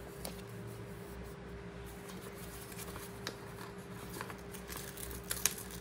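Sticker sheets and planner paper handled by hand: faint rustling and light taps, with a few sharper ticks near the end, over a steady faint hum.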